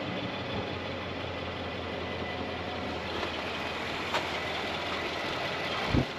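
Nissan Titan XD pickup's engine idling steadily, with a single short knock near the end.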